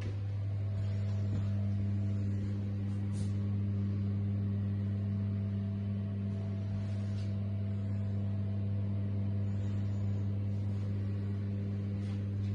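Bathroom extractor fan running with a steady low electrical hum.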